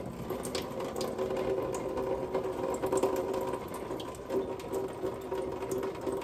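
Kitchen faucet running a thin stream over a jar into a stainless steel sink, with a steady hum and scattered small clicks as the jar is rubbed and turned under the water.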